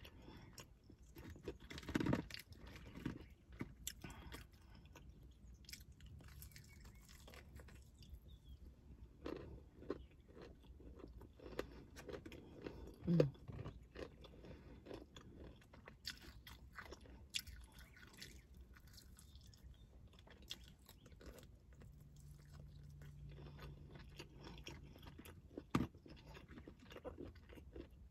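Crunchy breading of KFC crispy fried chicken wings being bitten and chewed close to the microphone. It makes irregular crackling crunches with wet chewing between them, and the loudest bites come about two seconds in, around the middle, and near the end.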